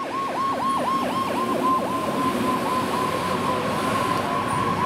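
Fire engine's electronic siren on a fast yelp, sweeping quickly up and down in pitch. The cycles speed up and grow shallower about halfway through.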